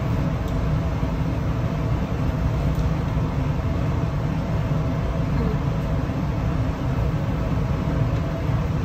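Steady low hum and rush of commercial kitchen equipment running, with faint steady tones above it.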